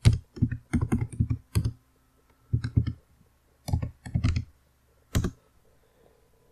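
Computer keyboard keys being typed in quick bursts of clicks, with a last single key press about five seconds in.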